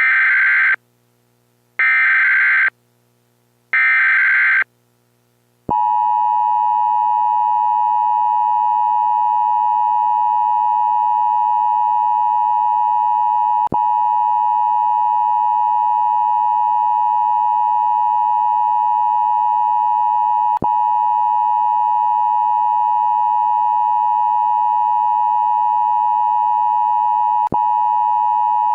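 Emergency Alert System SAME header: three short bursts of warbling data tones, each about a second long with a second of silence between. About six seconds in, a loud, steady, single-pitched alert tone starts and holds to the end, broken by three brief clicks roughly seven seconds apart.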